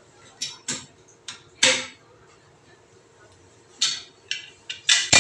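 Wrench clacking against the plastic siphon nut and ceramic toilet cistern as the nut is tightened: a few sharp knocks in the first two seconds, the loudest near the middle of them, then a quick run of four more near the end.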